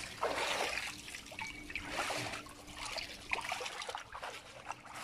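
Shallow water sloshing and trickling as hands work through a fishing net, coming in uneven surges with small splashes.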